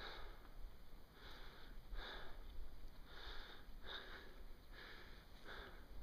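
A person panting close to the microphone, with quick noisy breaths in and out about once a second: out of breath from a steep snowshoe climb. Low wind rumble on the microphone underneath.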